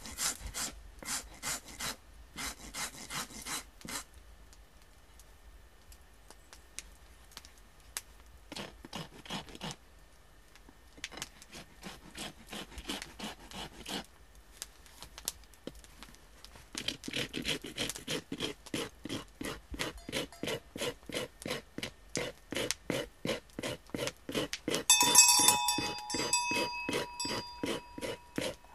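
Hand rasp or file worked back and forth, scraping in short runs and then in a steady rhythm of about two to three strokes a second. About 25 s in, a short bright metallic ring.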